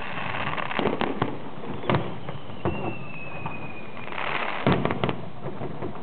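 Aerial fireworks bursting: a string of sharp bangs with short crackling tails, the loudest cluster near the end. A thin whistle falls slightly in pitch through the middle.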